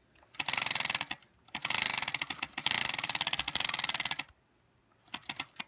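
A playing card held by a clothespin on a bicycle frame, flapping against the spokes of the spinning rear wheel: a fast run of clicks, in two bursts, the second longer, then a few slower clicks near the end as the wheel slows. It is the card-in-the-spokes trick meant to make the bike sound like a motorcycle.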